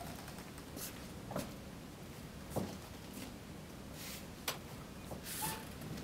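Quiet interior with a few faint, irregularly spaced clicks and taps, and a short high chirp near the end.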